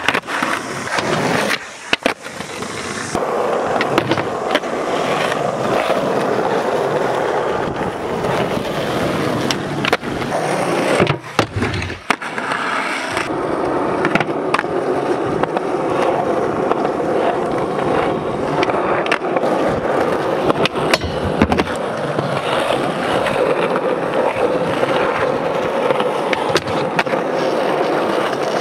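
Skateboard wheels rolling over rough, worn concrete with a steady gritty noise, broken again and again by sharp pops, clacks and slaps of tricks and landings. The sound changes abruptly several times as one clip cuts to the next.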